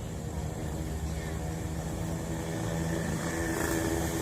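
An engine running with a steady low hum and a hiss above it, growing louder near the end.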